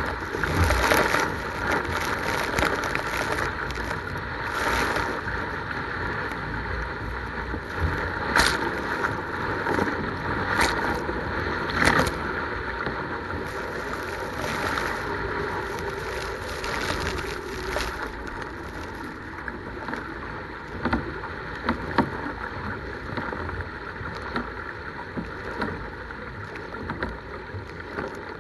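Sea kayak being paddled through rough, wind-driven chop: a steady rush of wind and water, with several sudden loud splashes of water over the aft deck, mostly in the first half, easing off later.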